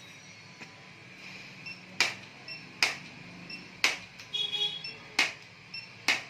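Chiropractic impulse adjusting gun firing: five sharp, dry clicks at uneven intervals of about a second, starting about two seconds in.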